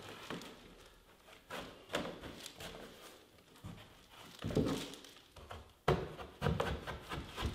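Hands rubbing and pressing an adhesive-backed carpet tile onto a wooden stair tread, with scattered soft thumps and rustles as the tile is set down and pushed into place.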